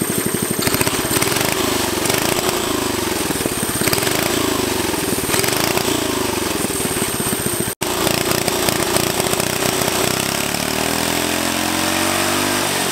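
Small 5 hp Briggs & Stratton flathead single-cylinder engine running on a go-kart, with a fast, even firing beat. Near the end it revs up, its pitch rising.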